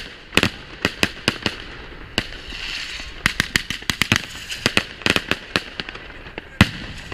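Fireworks going off overhead: a dense, irregular run of sharp bangs and crackles, with a hiss about two to three seconds in and one especially loud bang near the end.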